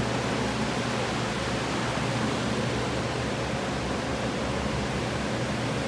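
Commercial drying equipment running: red centrifugal air movers and a dehumidifier blowing a steady, dense rush of air with a low hum, set up to dry out water damage.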